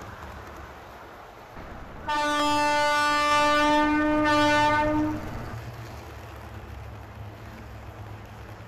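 Indian electric locomotive horn sounding one steady blast of about three seconds, starting about two seconds in, over the low, steady rumble of HO-scale model trains running on the track.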